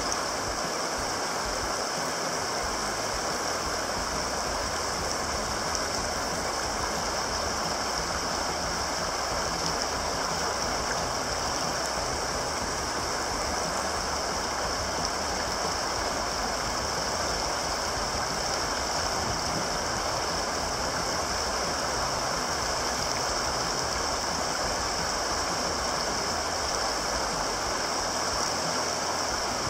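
Steady rush of whitewater rapids, an even roar of fast water with no break or change.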